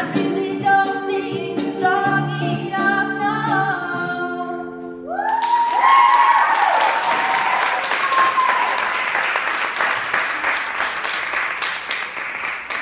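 A woman sings a held final line over acoustic guitar. About five seconds in the song stops and an audience breaks into loud applause, with whoops and cheers at first, the clapping carrying on and slowly thinning.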